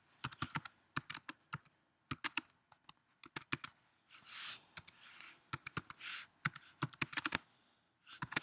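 Typing on a computer keyboard: quick runs of key clicks with short pauses between words.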